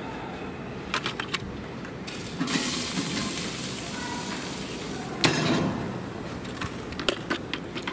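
Light metal clinks on a stainless steel gas grill, then about three seconds of loud hissing sizzle from the hot grill, cut off by a clang as the grill's metal lid is shut. A few more light clinks follow near the end.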